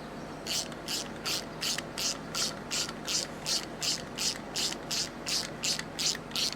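A hand ratchet fitted with a hex bit being worked back and forth, its pawl clicking in a short burst on each backstroke, about three strokes a second, while driving in a brake caliper bolt.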